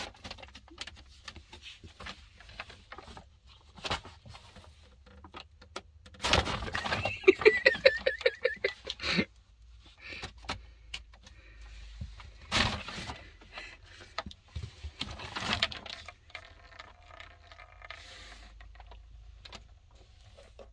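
Cat playing inside a bag: repeated crinkling and rustling with scattered small clicks. A loud voice-like outburst in short pulses breaks in between about six and nine seconds in.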